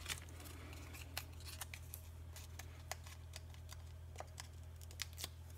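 Irregular small clicks and ticks of hands handling cardstock and Stampin' Dimensionals foam adhesive pads, over a steady low electrical hum.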